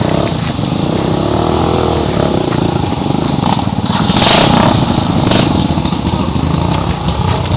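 Trail motorcycle engine running, its pitch rising and falling as the throttle is worked, with a louder rev about four seconds in.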